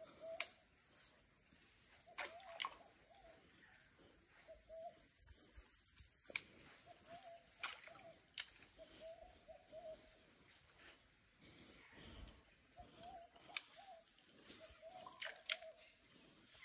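Faint bird calls: short, low warbling notes repeated every few seconds, with scattered sharp clicks in between.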